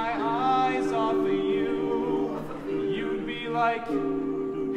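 Male a cappella group singing held chords in close harmony, changing chord about once a second, with a higher voice moving above them.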